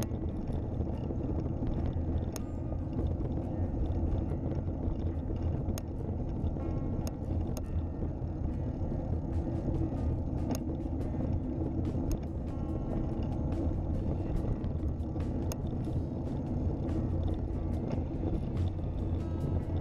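Road rumble from a recumbent trike's tyres rolling over cracked, rough asphalt, picked up through the trike-mounted camera, with frequent light clicks and rattles.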